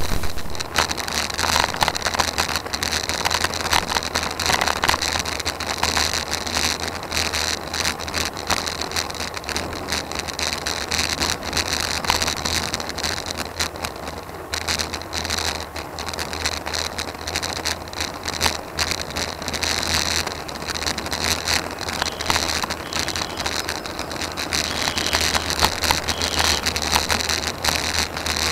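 Wind and road noise picked up by a camera mounted on a road bike's handlebar while riding, a steady rushing hiss full of small knocks and rattles from the mount over the road surface.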